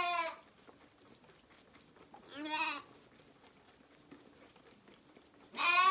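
Zwartbles lambs bleating: three bleats a few seconds apart, the middle one quieter. These are hungry lambs calling at bottle-feeding time.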